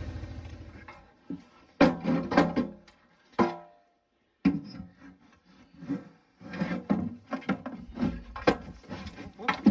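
An ATV engine idles and dies away in the first second. Then come metal clanks and knocks from an aluminium utility trailer's side panels and ramp being handled, one clank ringing briefly a little over three seconds in. After a short gap there is a steady run of knocks and scraping against the aluminium.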